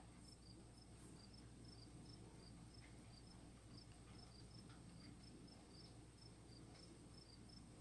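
Near silence, with faint, short, high chirps all at one pitch, coming irregularly a few times a second.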